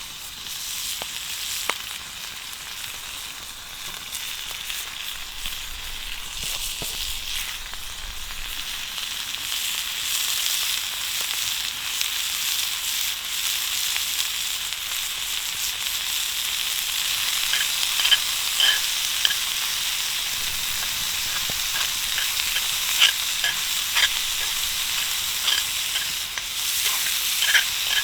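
Food sizzling in a hot frying pan, a steady hiss that grows louder, with sharp ticks and taps joining in the second half as it is stirred.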